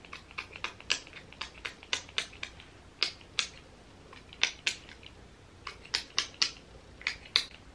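Fingertips patting a tacky gel primer onto facial skin, making quick, irregular sticky clicks, several a second with short pauses.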